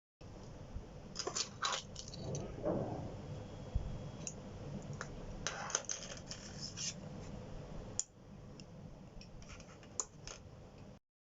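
Scattered light clicks and scrapes over faint room noise, from small hardware being handled during a test of a homemade RFID door lock.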